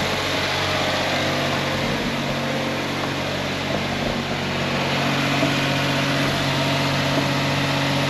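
Suzuki Kei's 660 cc three-cylinder engine running steadily in gear, with the car on a lift and its front hubs spinning freely; a steady hum of engine and driveline. No knocking is heard at the left front: the clunk is on the right side.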